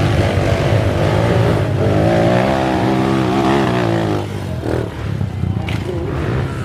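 Enduro dirt bike engine revving hard, its pitch rising and falling unevenly in the middle, then easing off.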